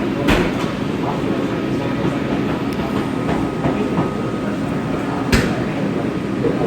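A person hiccupping twice, about five seconds apart, each a short sharp hic, the second louder, over a steady background noise.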